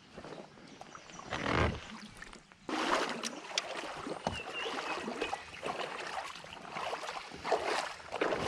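Water splashing and sloshing beside a kayak as a hooked smallmouth bass fights at the surface, with scattered clicks and knocks of fishing gear. The splashing swells about a second in and breaks out suddenly just before the middle.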